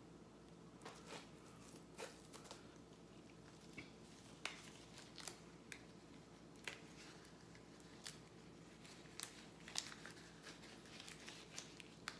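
Near silence: room tone with faint, scattered crinkles and small clicks of light handling, about one a second.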